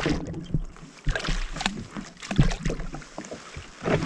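Scattered low thumps and light clicks of a fishing rod and reel being worked by someone standing on a jet ski.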